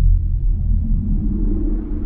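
Deep rumbling drone of a sci-fi ambient soundscape: steady low humming tones, with a higher hum swelling in about a second in.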